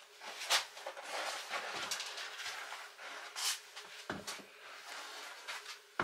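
Rustling and scraping of a large sheet of vinyl floor covering being handled and unrolled, with a few short knocks as the roll is moved.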